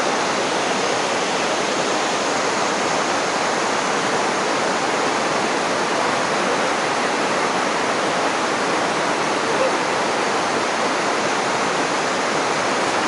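Shallow river rushing steadily over rocks and small rapids, an even, unbroken roar of water.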